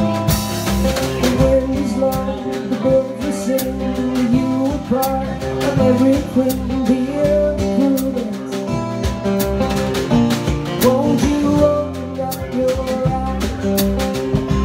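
Live acoustic guitar and drum kit playing a song together, with a man singing over them and frequent sharp drum and cymbal hits.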